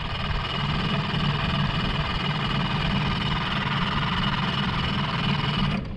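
Mercury outboard motor cranking steadily for almost six seconds without catching, then stopping abruptly. It is being cranked while it smells flooded, and the boaters take it for a flooded engine.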